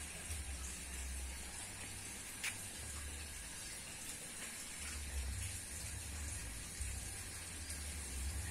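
Steady outdoor background hiss with a low rumble that comes and goes, like wind buffeting the phone microphone, and a faint click about two and a half seconds in.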